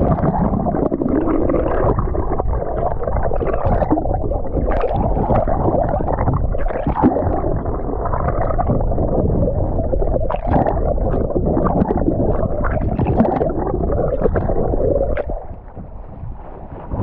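Water heard from below the surface: a muffled, steady rushing and gurgling with many small clicks and knocks, dropping away about fifteen seconds in.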